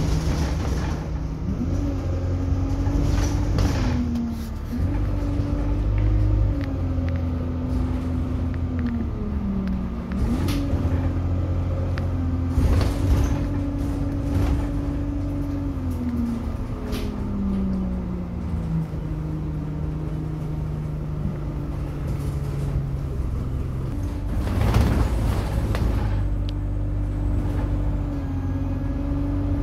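Inside an Alexander Dennis Enviro200 single-deck bus on the move: steady engine rumble with a drivetrain whine that rises, steps and falls as the bus pulls away, changes gear and slows, and occasional rattles and knocks from the cabin. A brief loud rush comes about 25 seconds in.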